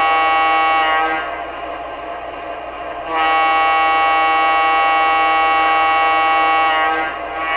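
Model diesel locomotive's onboard sound system sounding its air horn: the MTH Premier O-scale Seaboard Centipede with a Proto-Sound 2 board. A blast ends about a second in, then a long steady blast runs from about three seconds in until shortly before the end. A quieter steady running sound fills the gaps.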